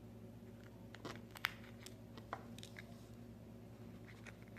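Faint, irregular clicks and small crunches of a metal tool prying shattered glass out of a Samsung Galaxy S7's rear camera lens cover, the sharpest click about a second and a half in, over a steady low hum.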